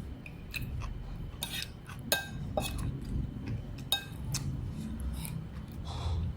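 Cutlery clinking against dishes: a series of light, irregular clinks with short ringing tones, over a steady low background rumble.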